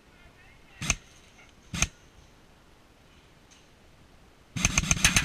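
Airsoft electric gun firing: two single shots a little under a second apart, then a rapid full-auto burst near the end.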